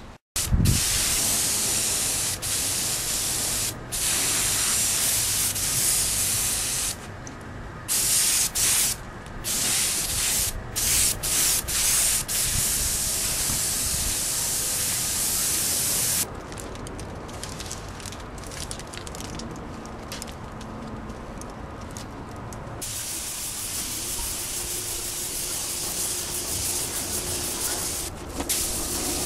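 Compressed-air gravity-feed paint spray gun hissing as it sprays red paint onto motorcycle fairing panels, in bursts that start and stop many times as the trigger is pulled and released.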